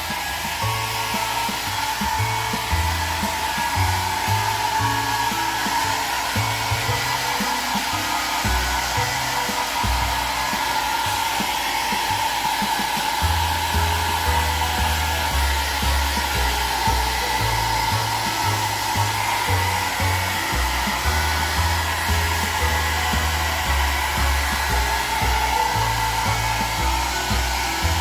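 Hair dryer blowing steadily with a whine near 1 kHz, drying a pet's soaking-wet coat after a bath.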